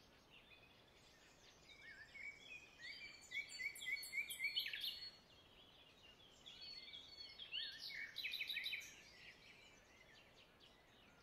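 Small birds chirping in two bouts of rapid, repeated short notes, the first about two seconds in and the second about seven and a half seconds in, over faint background hiss.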